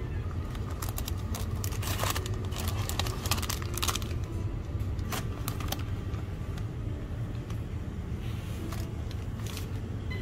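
Plastic retort food pouches crinkling and crackling as they are handled and taken off a store shelf, most densely in the first few seconds, over a steady low background hum.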